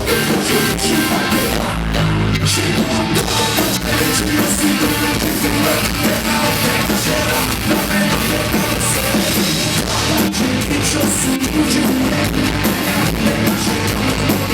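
Rock music with drum kit, electric guitar and singing, playing steadily over the whole stretch.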